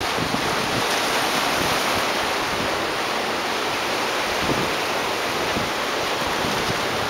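Steady rushing of ocean surf and wind, with the wind buffeting the camera microphone in irregular low rumbles.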